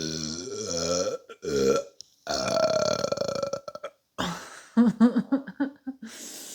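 A woman burping: a long, loud, pitched burp whose pitch wavers, a short one, then another long drawn-out burp, followed by a run of short, choppy belching sounds near the end.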